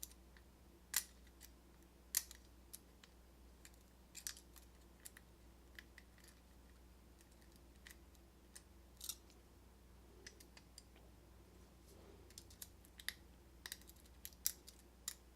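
Faint, scattered metallic clicks of a lock pick and tension wrench working the pins of a cheap pin-tumbler lock cylinder with a Schlage keyway, as it is being picked. The clicks are sparse at first and bunch together near the end.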